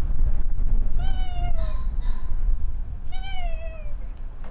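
Tabby cat meowing twice, each meow under a second long and falling in pitch, over a steady low rumble.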